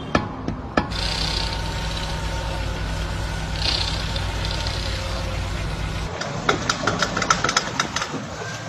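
Car engine running steadily at idle from about a second in until about six seconds in, then a quick run of sharp clicks.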